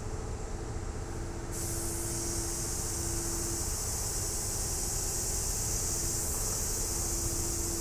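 Compressed-air paint spray gun hissing steadily as it sprays paint, starting about a second and a half in, over a steady low rumble.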